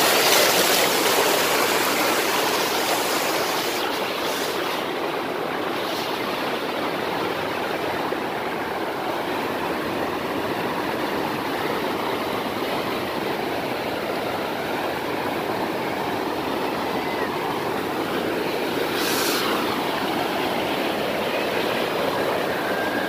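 Small forest waterfall: white water rushing and splashing steadily over rocks.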